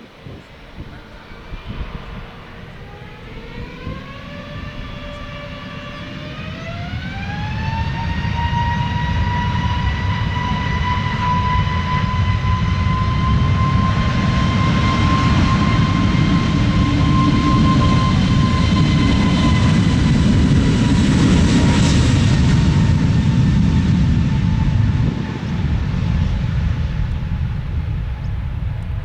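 Jet aircraft's engines spooling up to takeoff power, a whine rising in pitch over a few seconds, then holding steady over the loud roar of the takeoff run, which eases off about 25 seconds in.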